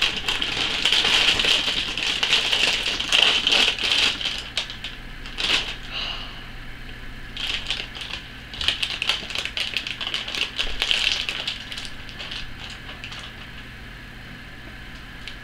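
Plastic cereal-box liner bag crinkling and rustling as it is pulled open and handled, with the cereal inside rattling. It dies down in the last few seconds.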